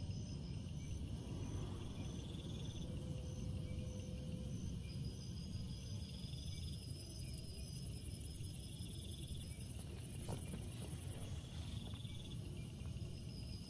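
Several insects trilling in repeated pulsed calls at a few different high pitches, some starting and stopping, over a steady low rumble, with a faint single tap about ten seconds in.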